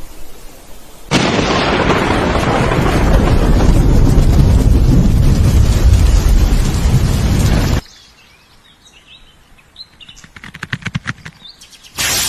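Explosion-like sound effect: a loud rumbling blast that starts suddenly about a second in, holds for about seven seconds and cuts off abruptly. It is followed by faint bird chirps, a quick run of crackling clicks, and another sudden burst near the end that dies away.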